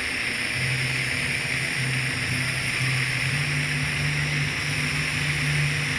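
TIG welding arc burning steadily as the cup is walked along the joint and filler rod is fed in: a constant hiss with a low hum that cuts in and out.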